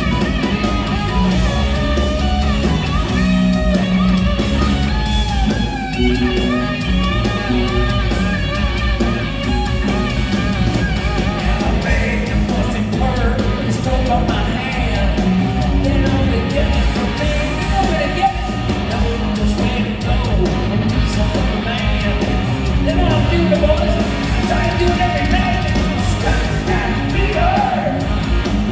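Live rock band playing loud through a concert PA, heard from the audience: electric guitar, electric bass and drum kit, with a sung lead vocal over them.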